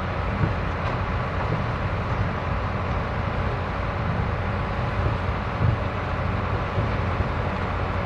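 Vintage tractor engine running steadily with the noise of field machinery.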